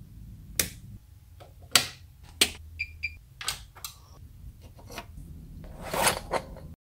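Sharp clicks of a wall toggle switch being flipped, three loud ones in the first two and a half seconds. Two short electronic beeps follow about three seconds in, then a few lighter clicks and a brief rustle of hands handling a small part near the end.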